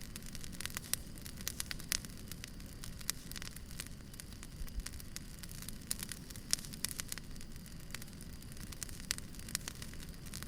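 Firewood burning in a fire, crackling and popping in irregular sharp snaps over a steady low hiss.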